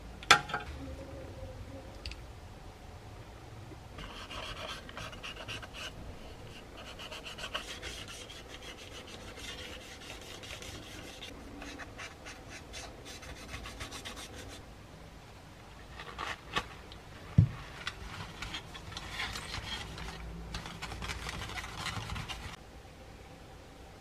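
Side cutters snip a plastic kit part off its sprue with one sharp click, then the hard plastic edge is worked over in long stretches of dry rubbing and filing strokes, cleaning up the cut. Two knocks about two-thirds of the way through.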